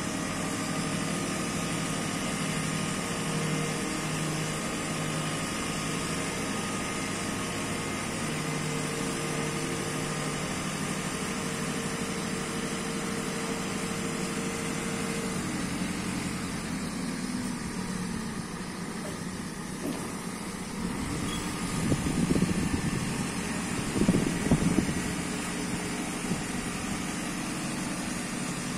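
JCB 535-140 telehandler's diesel engine running steadily while the hydraulic boom is telescoped out and back in. The engine note changes about halfway through, and there are two louder, rougher rumbles near the end.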